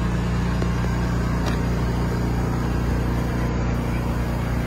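A steady, low mechanical hum of an engine running evenly at idle, unchanging throughout.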